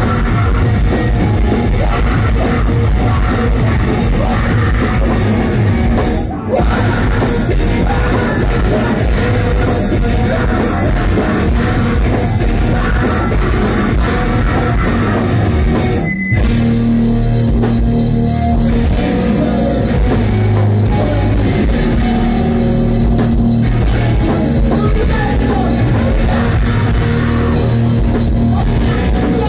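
Heavy rock band playing live: electric guitar, drum kit and a singer. The band cuts out for a split second about six seconds in and again about sixteen seconds in.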